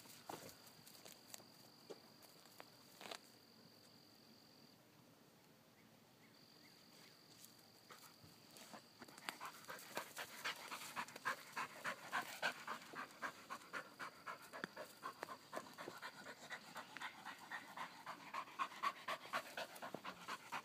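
Dog panting, a quick even run of soft breaths about three a second, starting about halfway through; before that only faint clicks.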